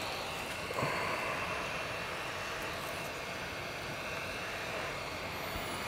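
Hot air rework station handpiece blowing steadily, an even hiss of air with a faint high whine, heating the glue under a touch screen so it can be lifted.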